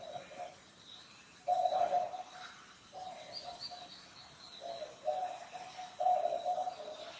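A bird's low calls, each about a second long, repeated several times a second or so apart, over a faint steady high whine.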